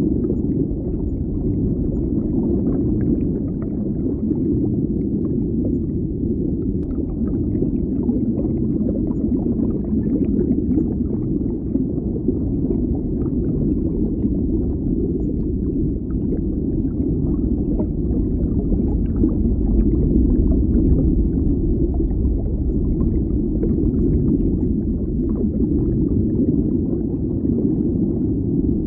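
Water bubbling as heard underwater: a steady, deep wash of sound with many small bubble blips scattered through it.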